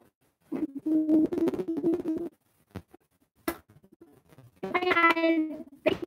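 A girl's voice singing two long wordless notes, the first starting about half a second in and the second about four and a half seconds in, with a short click between them.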